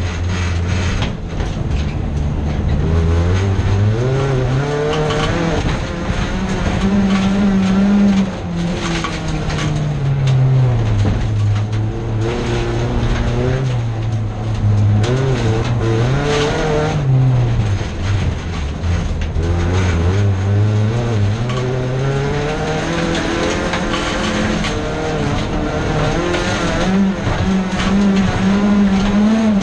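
Folkrace car's engine heard from inside the stripped cabin, driven hard: its pitch climbs under acceleration and drops back again and again through gear changes and corners, with frequent knocks and rattles through the body.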